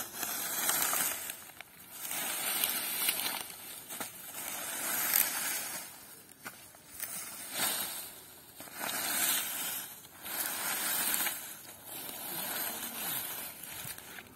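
A rake dragged again and again through dry corn stalks and husks on bare soil, raking the crop trash into rows. Each pull is a dry, crackling rustle lasting about a second, with about eight pulls coming every one and a half to two seconds.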